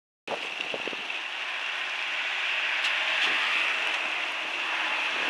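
Steady outdoor background hiss with a few faint clicks, no voices or music.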